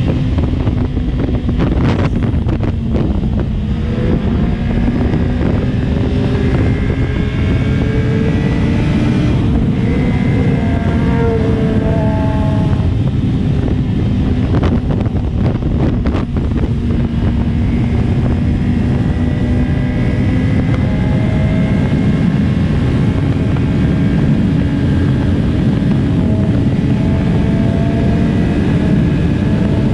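Sport motorcycle engine running at highway cruising speed, with heavy wind rushing over the microphone. The engine note holds steady, with its pitch rising and shifting for a few seconds around the middle.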